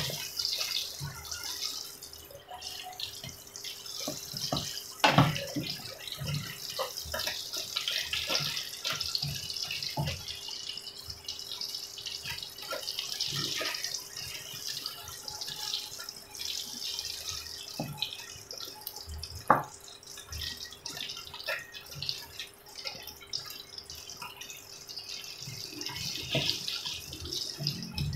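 Crumb-coated eggplant strips deep-frying in hot oil in a wok: a steady sizzle with crackling, broken by a few sharp knocks of the wooden spatula against the pan, the loudest about five seconds in and again near the twenty-second mark.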